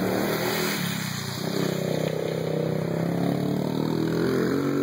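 Small youth ATV engines running and revving, their pitch rising and falling as the quads are ridden through mud.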